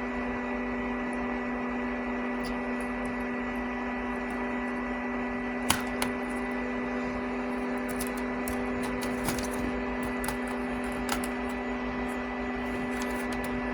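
Steady electrical hum with an even hiss, broken by a few short light clicks and taps, the sharpest about six seconds in.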